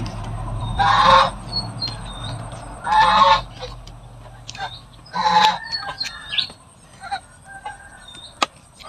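Domestic goose honking: three loud calls, each about half a second long, roughly two seconds apart.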